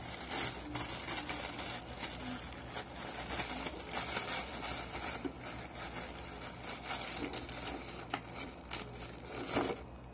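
Close rustling, crinkling and scraping of hands working modelling clay near the microphone, with many small clicks and scrapes throughout.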